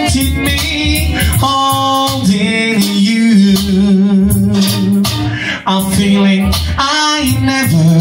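A man singing live into a handheld microphone, amplified, over backing music with a steady beat.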